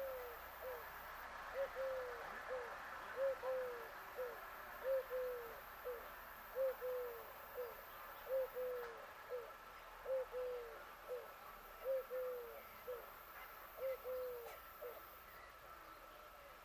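A dove cooing: the same three-note phrase, a short coo, a longer falling coo and a short one, repeated about every second and a half nine times, stopping near the end.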